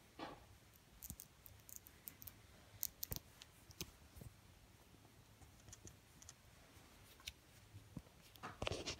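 Faint, scattered clicks and scratches of hands handling a plastic coolant hose and its fitting close to the microphone, over near silence.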